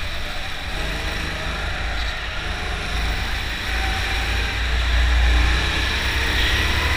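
Indoor rental go-kart running at speed, heard from a camera mounted on the kart: a steady low rumble of motor, chassis vibration and tyre noise, getting louder about five seconds in as the kart comes out of a corner onto a straight.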